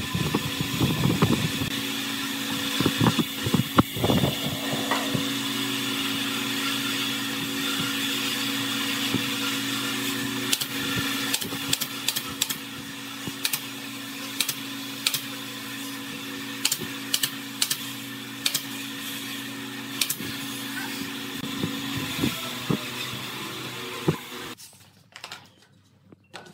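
Workshop air compressor motor running steadily with a fixed hum, then cutting off about 24 seconds in. A scatter of sharp clicks and knocks sits over it as crates and tools are handled.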